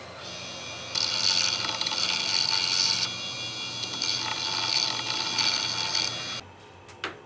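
Bench grinder's abrasive wheel grinding a steel pinion gear held against it by hand: a loud, high grinding screech over the motor's hum, in two spells of about two seconds with a short let-up between. The sound cuts off suddenly near the end, followed by a single short click.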